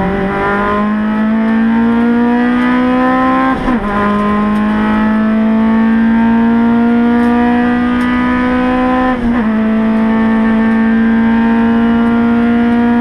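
Race car engine heard from inside the cabin, pulling hard at full throttle with its pitch climbing steadily, cut by two quick upshifts about three and a half and nine seconds in, after each of which the pitch drops and starts rising again.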